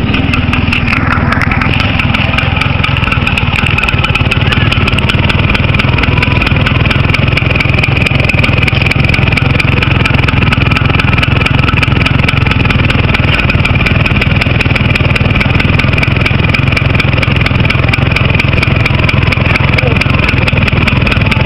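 Motorcycle exhaust running steadily and loud, with no revving, on an engine that has never been rebuilt and still has its original piston.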